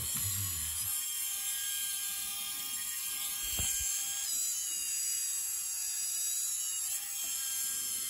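Servo motors of a UBTECH UKIT Intermediate robot bulldozer whining steadily as they drive it backwards and forwards. The whine shifts in pitch about four seconds in and again near seven seconds, and there is a single knock about three and a half seconds in.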